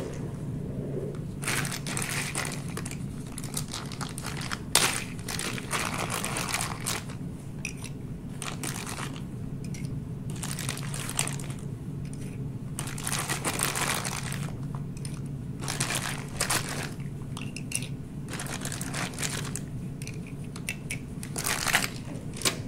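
Crinkling and rustling of gloved hands and a plastic bag as small plastic PCR tubes are handled and set into a mini centrifuge rotor, in irregular bursts, with a sharp click about five seconds in and another near the end, over a steady low hum.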